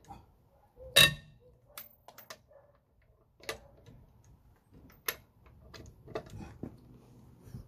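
Wrench ratcheting on a car wheel nut as it is tightened: a string of uneven metallic clicks. The loudest comes about a second in and has a short ring.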